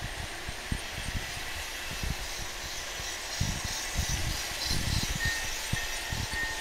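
Large-scale model train running along its track, with a faint thin whine from about five seconds in, over a steady hiss of hall noise and irregular low thumps.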